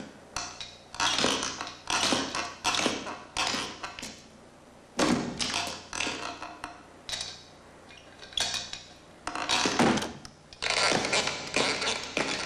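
Stop-motion film sound effects of a jointed wooden mannequin moving about: an irregular run of short wooden clunks and clatters, roughly one a second, growing denser near the end.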